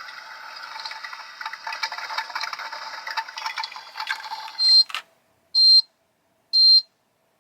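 Battery-powered toy coffee maker playing its brewing sound effect through a small speaker: a steady, crackly hiss for about five seconds. It then gives three short, high electronic beeps about a second apart.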